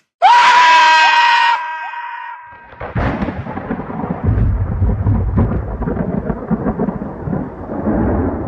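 A loud high-pitched blast that slides up in pitch and holds for about two seconds. From about three seconds in, a long rumble like rolling thunder, heavy in the low end, swells and runs on.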